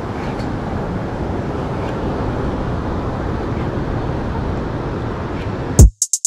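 Steady wind rumble on the microphone over breaking surf. Near the end it cuts off suddenly into a loud drum hit and the start of an electronic drum beat.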